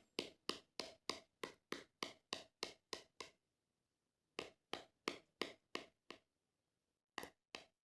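Rhythmic tapping on a hard surface, about three taps a second, in three runs with short pauses between them.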